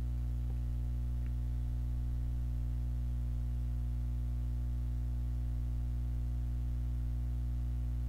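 A steady low musical drone of several held tones, unchanging in pitch and level.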